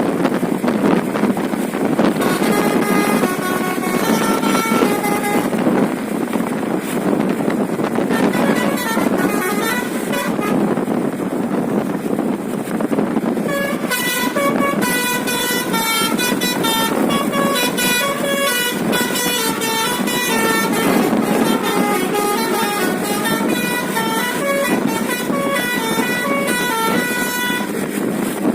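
Basuri telolet bus horn playing a melody in quickly changing notes: a short run a few seconds in, then a longer, busier run from about halfway to the end, over a steady noise.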